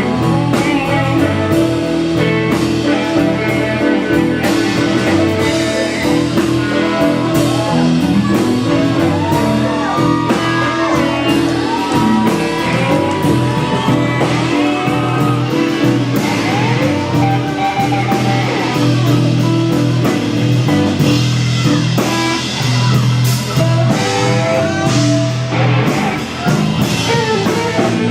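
Loud rock music with guitar and a drum kit, with guitar lines that bend in pitch.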